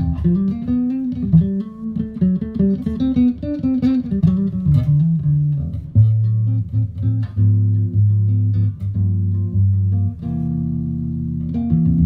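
Electric bass guitar played through an amp: a fast run of many short notes, then from about halfway longer held low notes that change every second or so.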